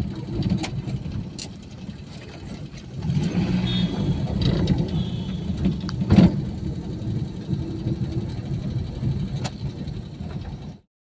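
Road and engine noise inside a moving vehicle: a steady low rumble that grows louder about three seconds in, with one sharp knock about six seconds in. The sound cuts off abruptly just before the end.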